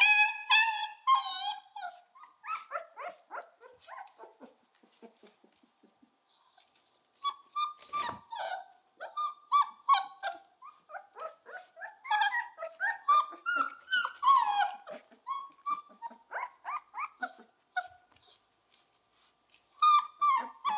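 Central Asian shepherd (Alabai) puppy whimpering and yelping in many short, high-pitched cries, with a longer howling note at the start. The crying stops for a few seconds twice, and a single sharp click comes about eight seconds in.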